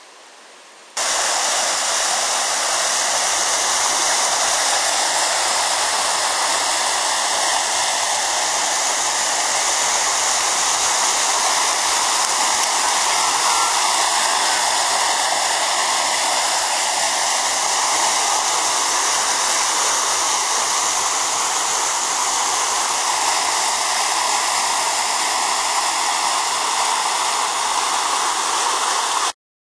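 Floodwater rushing and churning in whitewater rapids: a loud, steady rush of water that starts suddenly about a second in and cuts off abruptly near the end.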